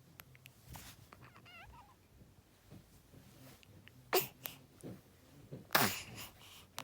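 A 22-day-old newborn making funny noises: a short wavering squeak, then loud sharp snort- or sneeze-like bursts about four and six seconds in.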